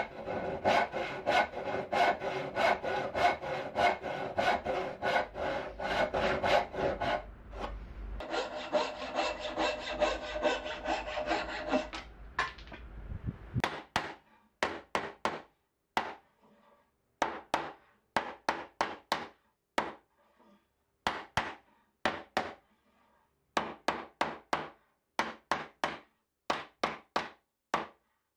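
Hand backsaw cutting a small block of cherry in fast, steady strokes until about 13 seconds in. Then short rubbing strokes of a small wooden block over the wood, in quick groups of three to five with pauses between.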